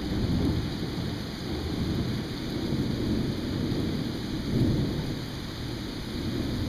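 Rolling thunder: a low rumble that swells and fades, with steady rain falling.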